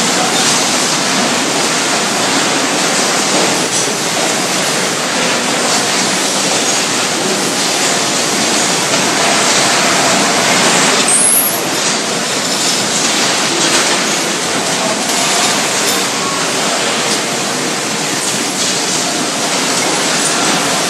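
Loud, steady din of running factory machinery, with a few faint clicks.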